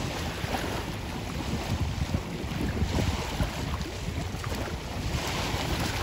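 Wind buffeting the microphone over choppy sea water with small waves splashing, a steady rushing rumble.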